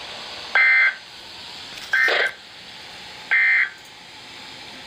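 Emergency Alert System end-of-message data bursts: three short buzzy digital tone bursts about a second and a half apart over a steady radio hiss, signalling the end of the alert.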